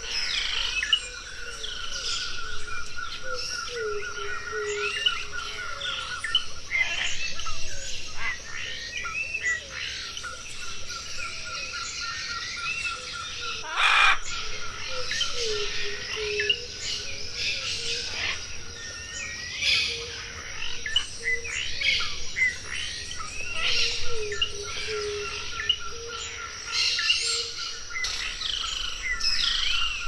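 Rainforest ambience: many birds chirping and calling over a steady high insect drone, with a rapid pulsing trill and repeated low whistled notes.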